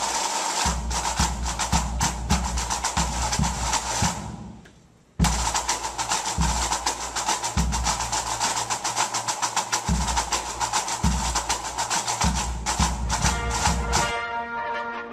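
Background music: a fast clicking percussion beat over a deep bass pulse. It fades out about four seconds in and cuts back in suddenly a second later, and held notes come in near the end.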